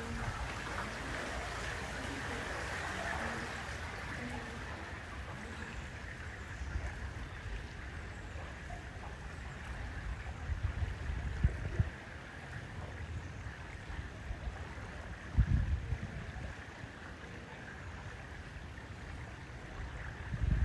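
Water rushing and lapping along the hull of a small boat cruising down a canal. Brief low rumbling bursts stand out, loudest about 11 and 15 seconds in.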